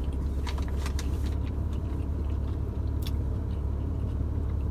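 Steady low rumble inside a car cabin, with a few brief light clicks and crackles about half a second to a second and a half in, and once more about three seconds in.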